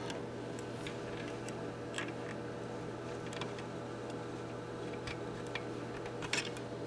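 Scattered light clicks and ticks of ohmmeter probe tips touching resistor leads, with a sharper double click near the end, over a steady electrical hum.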